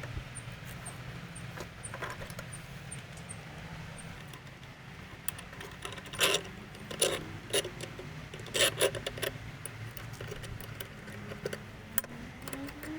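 Metal parts clinking and knocking, with a cluster of loud sharp knocks about six to nine seconds in, over a low steady hum.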